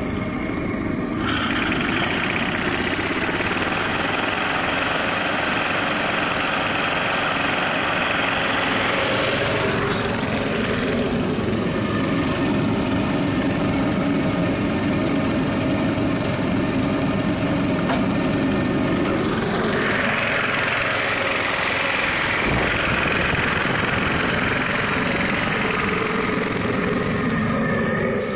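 Engine of a 1949 Bolinder-Munktell BM20 tractor, a two-cylinder hot-bulb engine, running steadily at idle, a little louder from about a second in.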